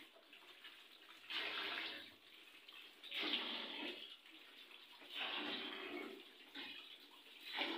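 Tap water splashing as sweet limes are washed by hand, swelling into four louder surges about every two seconds with quieter running water between.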